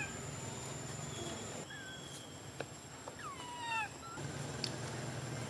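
Baby macaque crying: one short high call about two seconds in, then a quick run of falling squeals near the middle.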